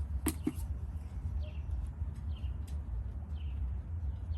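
A small bird chirping over and over, short falling chirps about two a second, over a steady low rumble. Two sharp clicks sound about half a second in.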